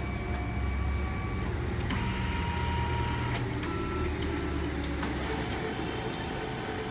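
Canon i-SENSYS MF3010 laser multifunction printer running an ID-card copy job: a steady low motor hum with a high whine that shifts to a lower tone about two seconds in, and a few faint clicks.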